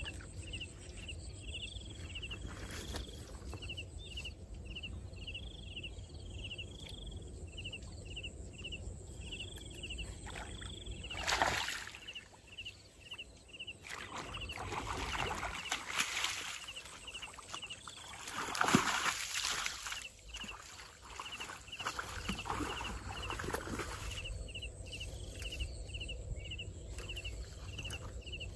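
Insect chirping in a steady rhythm, about two chirps a second, over a low rumble, broken by several rushing bursts of noise from about 11 seconds in, the loudest near 19 seconds.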